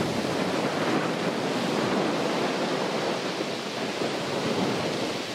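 Wind blowing over the microphone: a steady rushing noise.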